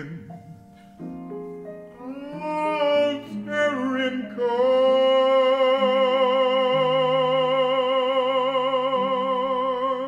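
Male jazz vocalist singing a phrase that rises about four seconds in into one long, loud high note held with a wide vibrato, over sustained piano chords.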